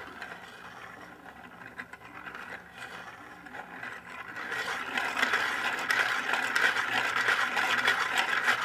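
Plastic parts of a hand-turned, 3D-printed double Scotch yoke scraping and rattling as the crank pin drives the horizontal and vertical sliders through their slots. The scraping grows louder about halfway through.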